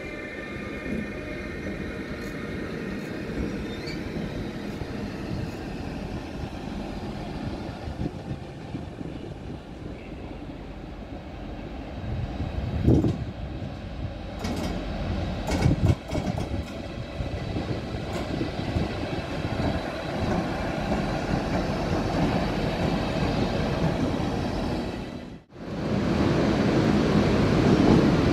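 Siemens Vectron electric locomotive and passenger coaches rolling slowly over the station tracks, with steady wheel noise and a few loud knocks about halfway through as the wheels cross rail joints and points. Near the end the sound drops out for a moment, then comes back louder.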